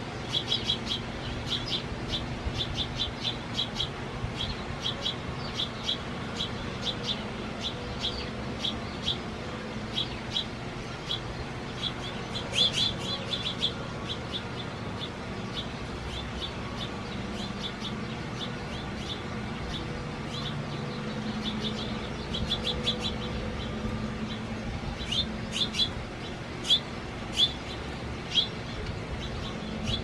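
Small songbirds chirping in quick, repeated series of short chirps, busy at first, thinning out through the middle and picking up again near the end, over a steady low hum.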